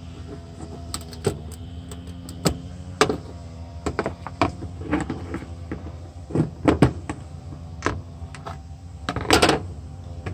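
Metal panel-popper tool clicking and scraping against the painted sheet-metal radiator support as it pries a plastic push-pin clip out. The sharp, irregular clicks are loudest near the end, as the clip comes free, over a steady low hum.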